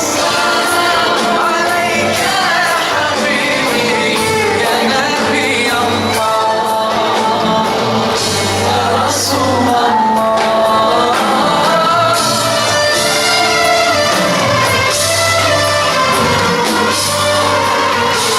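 A song performed live: singing over musical accompaniment.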